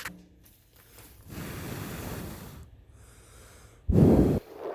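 A person's breath: a long breathy exhale, then a short, loud puff of air about four seconds in.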